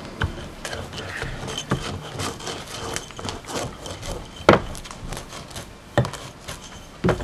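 A can rolled and pressed by hand across a painted board on a wooden workbench: low rubbing and scraping, broken by several sharp knocks, the loudest about four and a half seconds in.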